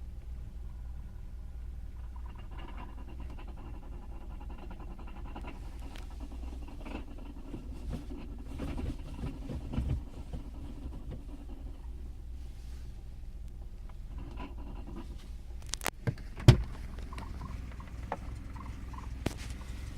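1989 Fiat Tipo engine idling with a light rattle that comes with the clutch pedal pressed, a noise the owner hears only below about 950 RPM and cannot yet explain. A few sharp knocks sound near the end.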